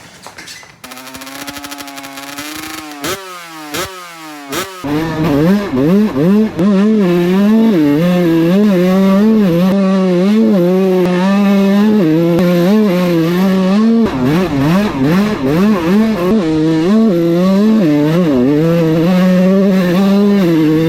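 Kawasaki KX125 two-stroke single-cylinder dirt bike engine running at low revs, then blipped sharply a few times, then ridden hard with the revs rising and falling over and over.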